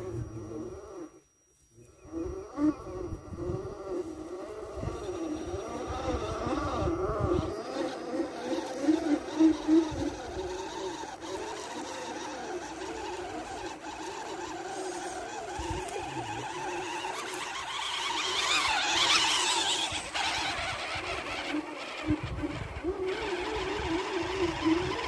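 Electric motors and geared drivetrains of scale RC crawler trucks whining as they crawl over dirt. The pitch wavers up and down with the throttle, with a short gap about a second in and a louder, harsher stretch near the end.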